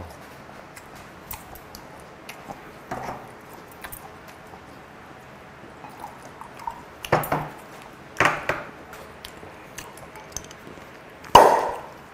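Glass soju bottle and drinking glass being handled and poured from. There are scattered light clicks and a few sharp glassy knocks and clinks, the loudest about eleven seconds in with a short ring.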